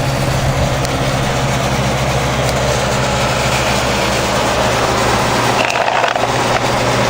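Vintage Montgomery Ward Tru-Cold box fan, made by Lasko with a Westinghouse motor, running steadily: a motor hum with the rush of air from its four blades. A brief handling rustle comes about six seconds in. The owner thinks the motor could use some oil.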